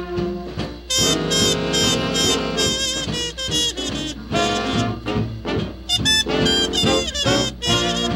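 Swing-era big band jazz music with saxophones and brass playing a lively tune.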